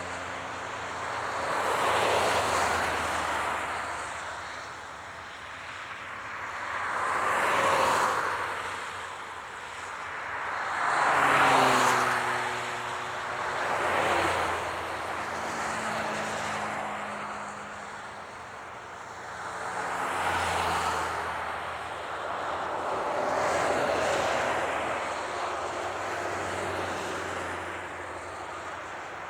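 Highway traffic: vehicles passing one after another, each rising and fading as a swell of tyre and engine noise every few seconds. A few of them carry a falling engine or tyre tone as they go by.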